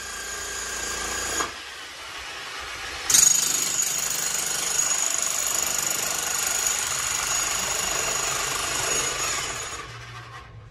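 Corded electric jackhammer breaking up hard ground. It runs at a lower level at first, then hammers steadily at full power from about three seconds in, and eases off near the end.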